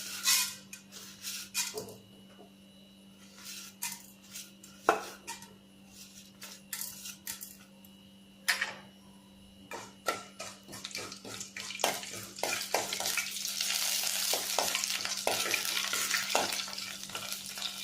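Metal spoon clinking and scraping against a kadai as urad dal and other ingredients are added and stirred in hot oil, scattered clicks at first. About twelve seconds in, a steady frying sizzle starts and holds.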